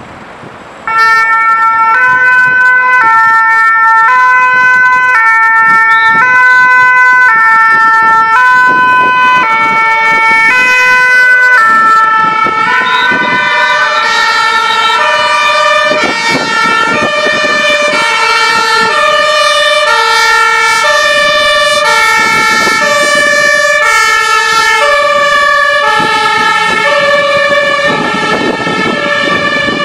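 Two-tone emergency vehicle sirens, each alternating between a high and a low note held about half a second. The first starts suddenly about a second in and is loud. From about twelve seconds a second siren at different pitches joins, and the two overlap.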